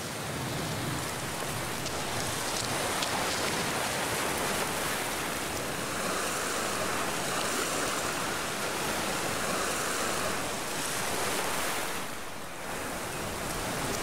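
Ocean surf breaking and washing over rocky shoreline: a steady rushing noise that dips briefly near the end.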